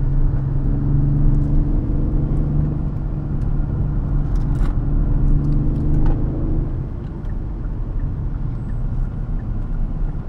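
Car engine pulling at a steady note over constant road and tyre rumble, easing off about seven seconds in, with a couple of light knocks from the cabin partway through.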